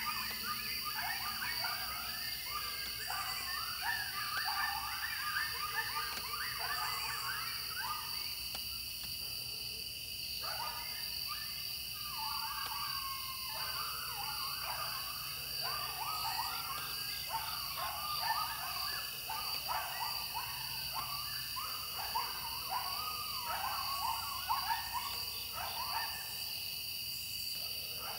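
A pack of coyotes yipping and howling close by, a chorus of quick rising and falling cries in two long bouts with a short lull about nine seconds in. A steady high-pitched drone runs underneath.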